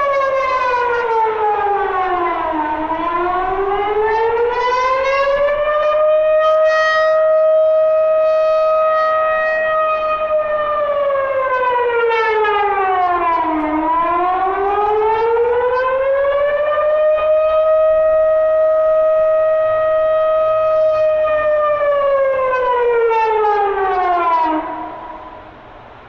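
Civil defence warning siren sounding its wavy tone, the signal that a threat has occurred, sounded here as a test. The pitch slowly slides down and back up twice, holding high for several seconds in between, then the siren falls away and stops about 24 seconds in.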